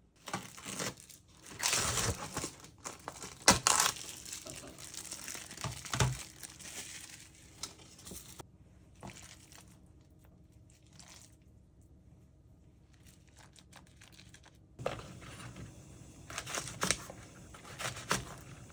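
Crinkling and rustling of something being handled, in irregular bursts with a few sharp clicks; it eases off in the middle and picks up again near the end.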